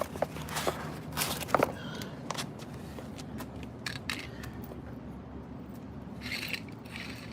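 Car jack and tire tools being handled: scattered sharp clicks and knocks of metal parts, most of them in the first two seconds, and a short scrape near the end, over a steady low background hum.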